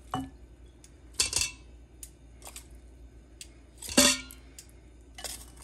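Metal tongs clinking against a stainless-steel Instant Pot inner pot and its wire trivet as pieces of short rib are set in: several separate clinks, the loudest about four seconds in, with a brief metallic ring.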